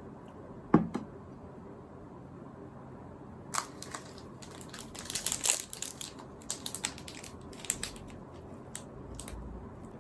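A single knock under a second in, then several seconds of rapid crinkling and clicking as something is handled.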